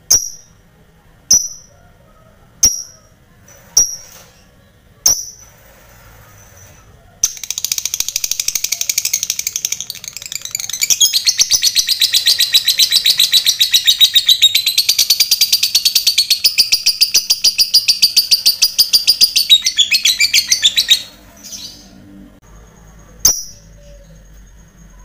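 Fighter lovebird giving sharp single calling notes about every second and a quarter, then a long, fast rattling chatter, the 'ngekek panjang', which grows louder and runs for about 14 seconds before stopping abruptly. One more single call comes near the end.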